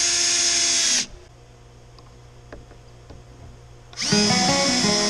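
Cordless drill running in two bursts, about a second near the start and again from about four seconds in, its motor whine rising as it spins up and then holding steady as it drives into the wooden door brace; a few faint clicks lie in the pause between.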